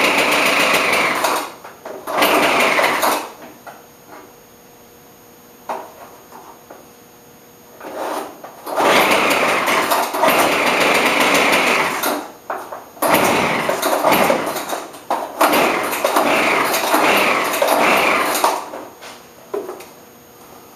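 Small two-stroke engine of a Craftsman leaf blower running in five short loud bursts of one to four seconds, dropping away between them, as it fails to keep running. The carburetor's metering diaphragm and gasket were fitted in the wrong order.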